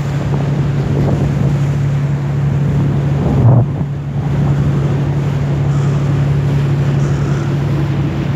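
Steady low drone of a tour boat's engine underway, with wind buffeting the microphone and water rushing past the hull. The sound swells briefly about three and a half seconds in.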